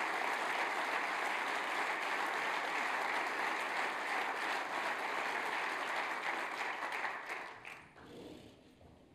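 Large audience applauding steadily, the clapping dying away about seven to eight seconds in.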